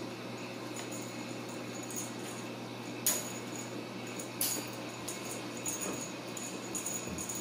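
Kittens scrabbling and playing around a wire pen: light scuffs and small clicks, with two sharper clicks about three and four and a half seconds in, over a steady low hum.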